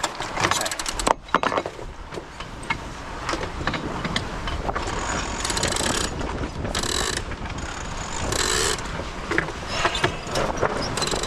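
Sailboat sheet winch ratcheting in several bursts of clicking as a sheet is trimmed in.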